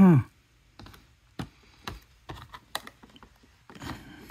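Cardboard and plastic toy packaging being handled: irregular light clicks and taps, a rustle near the end, after a short falling vocal sound at the very start.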